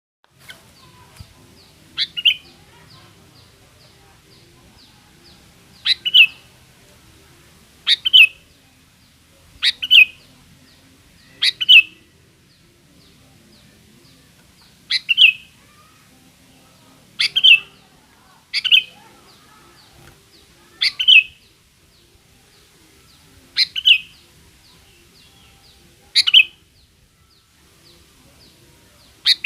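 Sooty-headed bulbul (kutilang) calling: one short, sharp call repeated about every two seconds, about a dozen times, used as a lure call to make other bulbuls answer.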